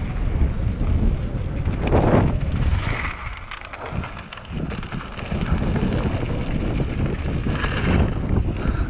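Wind buffeting the microphone of a mountain bike's point-of-view camera on a fast descent, over the rumble of tyres on a loose gravel trail. It quietens for about a second and a half a little past three seconds in, with a few light ticks and rattles, then picks back up.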